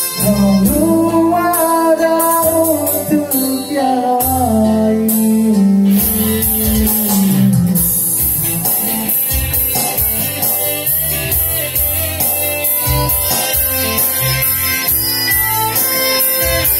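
Live band music: an electric guitar and an electronic keyboard play together over a steady beat, with a melody line gliding between notes in the first few seconds.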